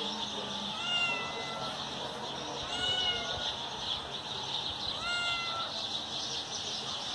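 Domestic cat meowing three times, about two seconds apart, each meow a little under a second long and rising at its start.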